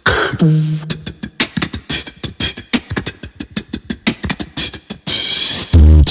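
Beatboxing into a microphone: a short vocal note sliding down at the start, then a fast run of mouth clicks and snare-like hits, a long hiss about five seconds in, and loud deep bass hits right at the end.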